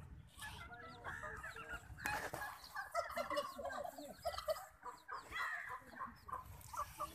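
Nepali native chicken clucking, a run of many short calls in quick succession.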